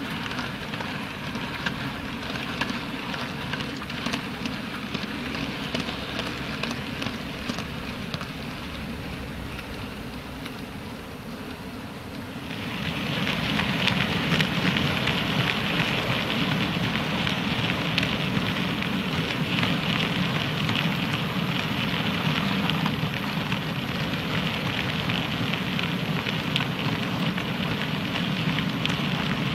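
Model freight train running along the track: a steady crackling rumble of small wheels on the rails. It gets louder about twelve seconds in as the container wagons pass close by.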